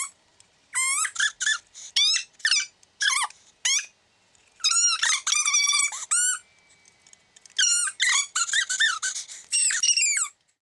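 A rapid series of short, high-pitched squeaks, each sliding up or down in pitch, coming in three bursts with brief pauses between.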